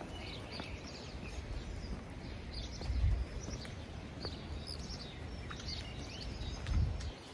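Small birds chirping on and off over a low outdoor background hiss, with a couple of low rumbles about three seconds in and near the end.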